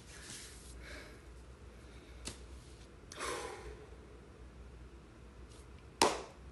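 A person blowing out a heavy breath about three seconds in, with a faint click a little before it. Near the end comes a single sharp hand clap, the loudest sound.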